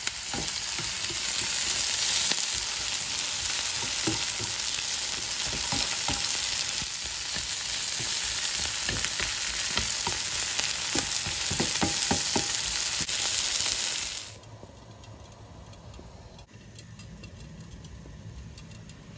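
Sliced scallions and red and shishito peppers sizzling in a hot oiled pan as they are stirred, with light clicks of the utensil. The loud sizzle drops sharply about fourteen seconds in to a much quieter crackle.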